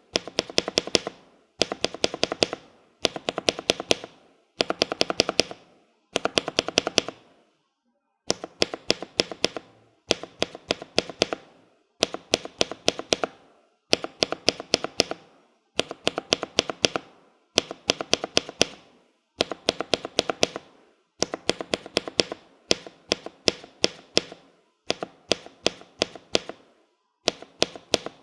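Mechanical-keyboard spacebar with a Cherry-profile keycap, a Hyperglide Cherry MX Black linear switch and an ML V1 stabilizer, struck in quick runs of about six to eight presses. Each run lasts about a second, with short pauses between runs.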